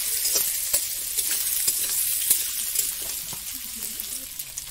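Potato slices sizzling as they fry in a metal wok, with a metal spatula scraping and clinking against the pan as they are stirred. The clinks thin out and the sizzle gets a little quieter near the end.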